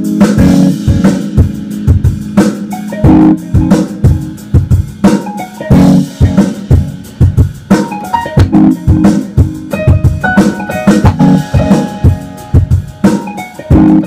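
Keyboard music over a steady drum-kit beat: held chords played on an electronic piano, with a higher melody line joining about halfway through.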